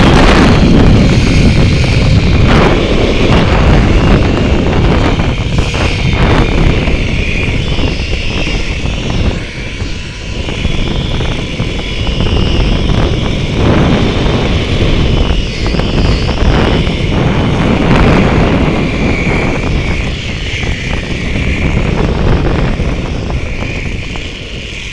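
Zip-line trolley pulleys running fast along the steel cable, a steady whir under loud wind buffeting the microphone. The sound eases off near the end as the trolley slows toward the landing.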